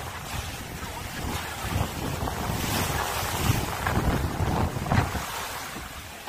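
Wind buffeting the microphone and water rushing and slapping along the hull of a sailing yacht under sail in a choppy sea.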